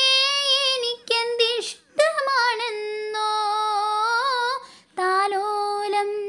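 A child's solo voice singing a Malayalam children's song in long, held, wavering notes, with short breaks between phrases.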